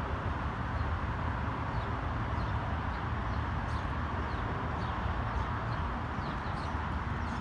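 Small birds chirping repeatedly in short, falling notes over a steady low rumble.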